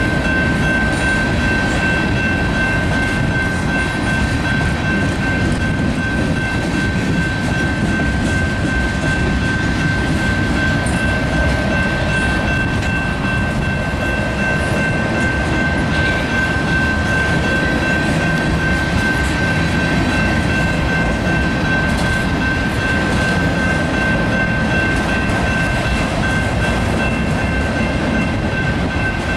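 Freight cars of a passing train rolling steadily over the rails with a continuous low rumble of wheels. Over it the grade-crossing bell gives a steady high ringing tone.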